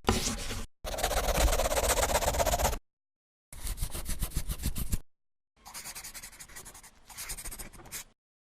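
Opening sound effects of a TV programme: four short bursts of fast rattling, buzzing noise, each cut off abruptly by dead silence, the last one fainter.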